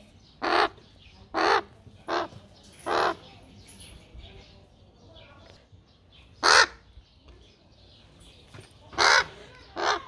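A young hand-raised crow cawing: seven short calls, four close together in the first three seconds, one alone about six and a half seconds in, and two more near the end.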